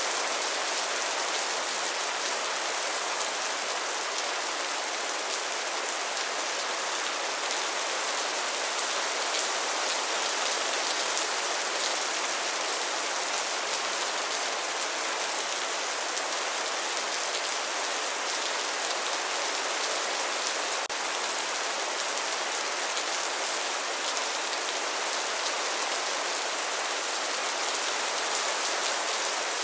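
Steady rain falling, a constant even hiss of drops with fine pattering detail.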